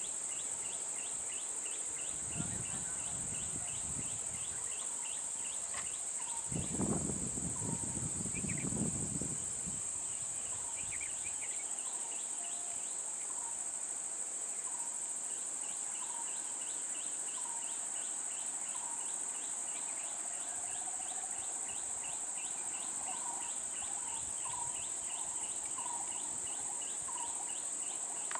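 Steady high-pitched insect drone, with short repeated bird calls about once a second. Twice, a few seconds in and again around the middle, a low vehicle engine sound swells up and fades.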